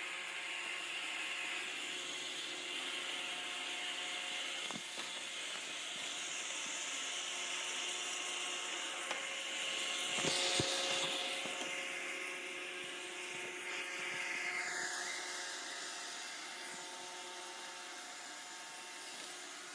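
Robot vacuum cleaner running: a steady motor whine and hum, with a few knocks about ten seconds in and the high whine dropping in pitch a little later.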